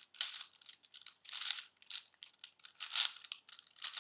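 Shengshou 4x4 puzzle cube being turned quickly by hand: uneven bursts of plastic rasping and clicking as the layers turn, several a second.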